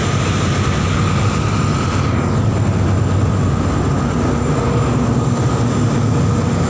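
Loud, steady machinery drone: a deep, even rumble with a faint constant whine above it.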